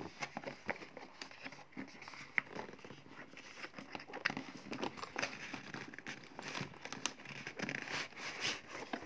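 Cardboard box being handled and opened by hand: irregular rustling and scraping of the cardboard, with light taps and knocks.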